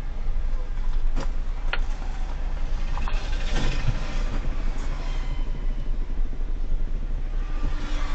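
Car on the move: steady low rumble of engine and road, with a few short knocks or clicks about one, two and three and a half seconds in.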